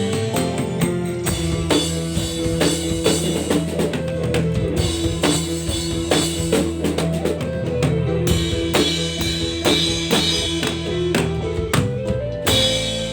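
A dangdut campursari band playing through a PA sound system during a sound check: a steady drum beat under held instrument notes, with guitar, changing into a new passage near the end.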